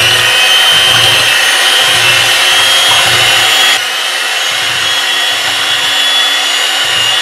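Electric hand mixer running steadily, its twin beaters whisking a runny cream mixture in a glass bowl, with a high motor whine. It drops slightly in level a little under four seconds in.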